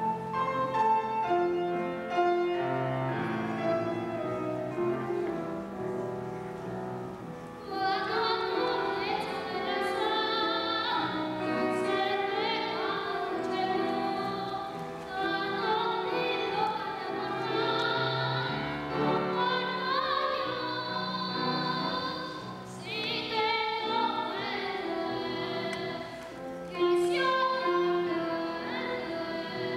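A boy's treble voice singing a classical-style song with instrumental accompaniment; the accompaniment plays alone at first and the voice comes in about eight seconds in, singing in phrases over it.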